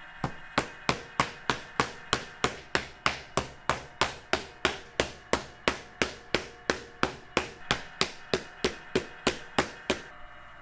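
Wooden paddle beating the clay wall of a large onggi earthenware jar, a steady run of sharp strikes about three a second that stops near the end.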